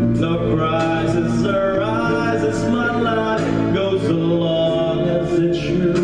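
A man singing a song into a microphone, with instrumental backing.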